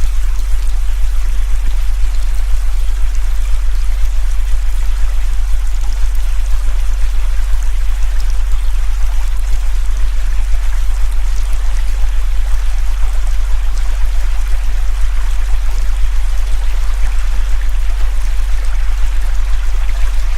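A steady low electronic tone of a frequency-therapy track, held unchanged beneath the even rushing of a river recording.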